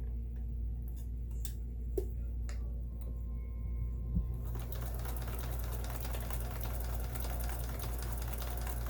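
Kenmore 158-series vintage sewing machine: a few light clicks, then from about four and a half seconds in it starts stitching, a fast, even mechanical chatter over a low motor hum that keeps on to the end.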